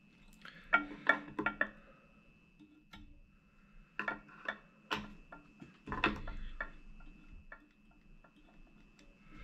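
Irregular clusters of light clicks and ticks as fly-tying tools are handled at the vise: thread wrapped from the bobbin onto the hook, and fine scissors trimming material.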